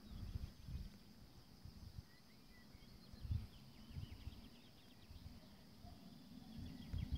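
Faint wind rumbling on the microphone in uneven gusts, with faint bird chirps in the distance about a third of the way in.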